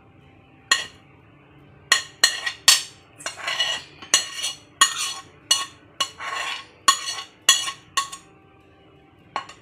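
A spoon and a glass plate clinking and scraping against glass as chopped vegetables are scraped off the plate into a glass bowl. It is a string of sharp clinks with a few longer scrapes, and it stops a second or so before the end.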